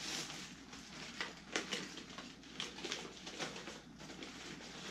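Plastic packaging and the fabric of a fishing waist pack being handled: irregular soft crinkles and rustles, with a few sharper crackles.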